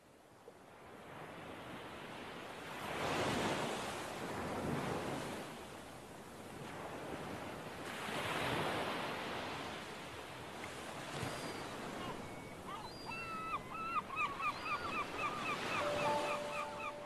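Ocean surf: waves washing in, the noise swelling and fading about every five seconds. About two-thirds in, a quick series of high chirping calls joins. Near the end, two steady tones start.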